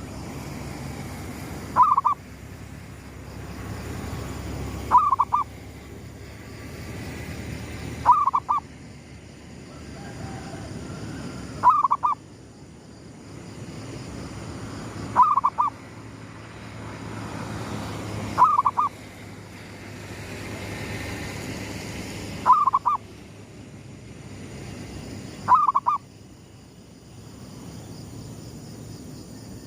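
Zebra dove (perkutut) cooing, a short burst of quick notes repeated about every three to four seconds, eight times, over steady faint background noise.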